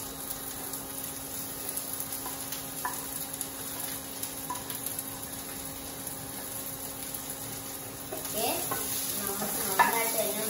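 Chopped onion, garlic, green chilli and ginger sizzling in oil in a nonstick frying pan while a spatula stirs them. The pan grows louder and busier about eight seconds in.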